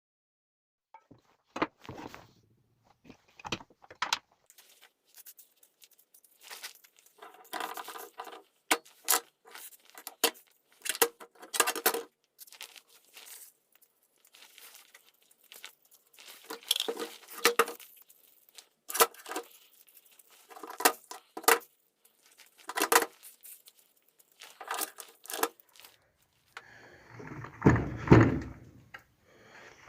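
Metal parts and hand tools clinking and knocking during hand work on a Hitachi D13 drill: irregular sharp clicks and clatters, some with a short metallic ring. Near the end there is a louder, rougher rubbing noise.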